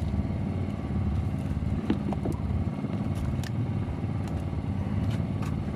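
A small engine on a fishing boat running steadily with a low, even hum, with a few light clicks scattered over it.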